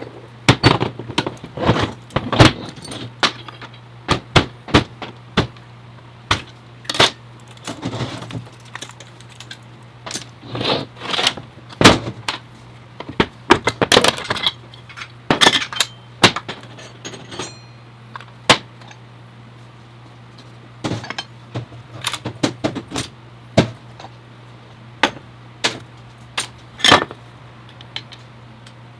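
Metal parts and hand tools clinking and knocking at irregular intervals while an automatic transmission is taken apart on a workbench, over a steady low hum.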